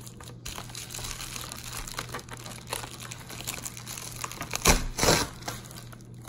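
Plastic packaging crinkling and rustling as a parcel is unwrapped by hand, with a louder burst of crinkling about three-quarters of the way through.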